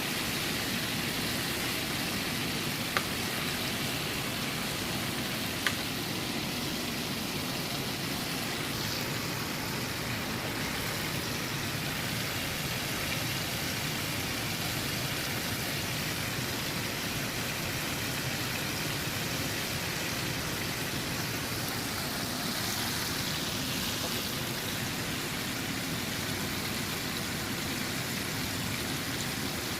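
Breaded chicken pieces deep-frying in hot oil: a steady, even sizzle. Two short sharp clicks sound about 3 and 6 seconds in.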